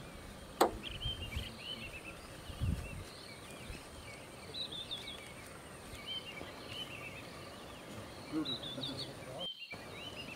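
Open-country ambience full of repeated short, high chirping calls, with one sharp click under a second in and a low thud about three seconds in. The sound drops out briefly near the end.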